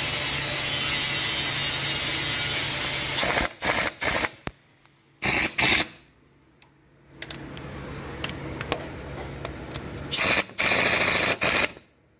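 Power tool running in loud short bursts of about a second each, with abrupt breaks between them.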